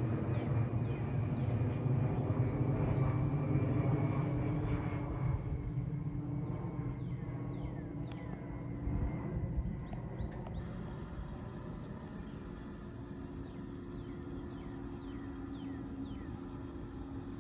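Jet airliner engine rumble, loud for the first few seconds and then dying away to a fainter steady rumble. Short high chirps repeat over it.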